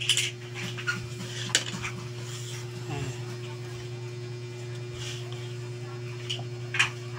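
Pork belly slices being pressed and turned by hand in a dry floury coating on a plate, with a few sharp clinks and taps against the plate. A steady low hum runs underneath.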